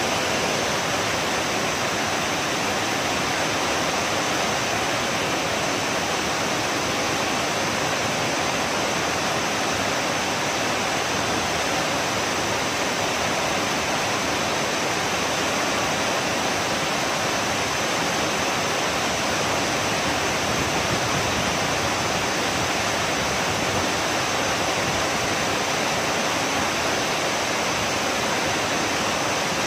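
Waterfall pouring into a pool: a steady, unbroken rush of water.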